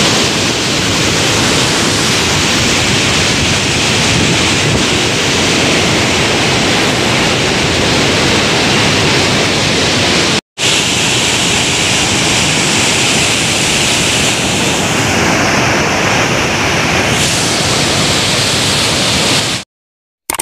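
Fast, turbulent floodwater rushing and churning in a loud, steady rush. The sound breaks off for a moment about halfway through and stops about a second before the end.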